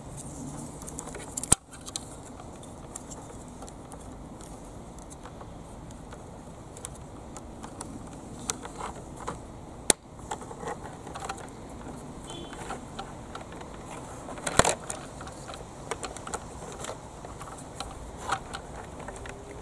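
Hard plastic parts of a toy excavator being handled and fitted by hand: scattered small plastic clicks and knocks. A few sharper clicks stand out, one about a second and a half in, one about ten seconds in, and a cluster a little later.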